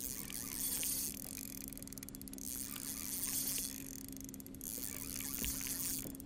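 Water and wind noise on a fishing boat, a hiss that swells and fades every couple of seconds over a steady low hum, with scattered faint clicks.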